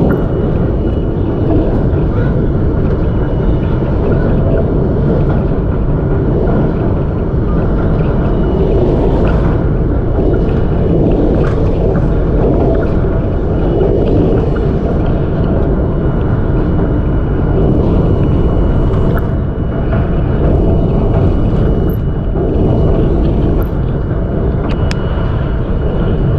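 R42 subway train running at speed over a steel bridge: a loud, steady rumble of wheels on rail. A faint steady high tone runs through it, and a few scattered clicks come and go.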